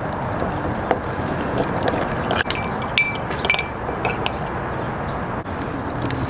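Light clinks and clicks of cooking utensils, mostly between about two and four seconds in, some with a short ring, over a steady hiss.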